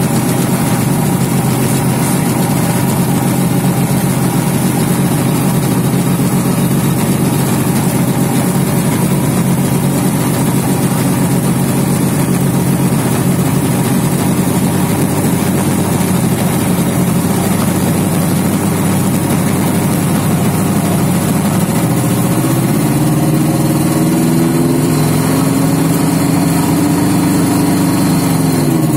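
Himax ultralight's two-stroke engine running at a steady idle around 1,400 rpm. A little over 20 seconds in it revs up toward about 2,800 rpm, then eases back near the end. Loud.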